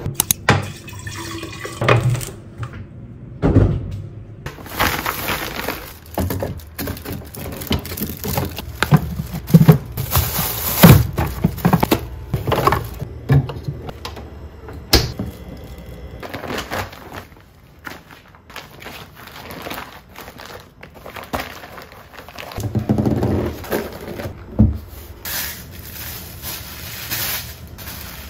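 Groceries and containers being handled and put into a refrigerator: irregular knocks and thuds, with a quieter stretch in the middle.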